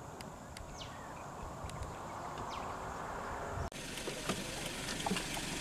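Outdoor ambience: a low rumble with a steady high-pitched drone and two falling whistles. About two-thirds of the way through it cuts off abruptly to a different, noisier ambience with light clicks.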